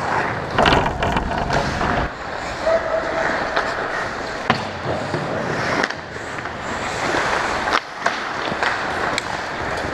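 Ice hockey play heard from behind the goal: skate blades scraping and carving on the ice, with sharp clacks of sticks, puck and boards at intervals.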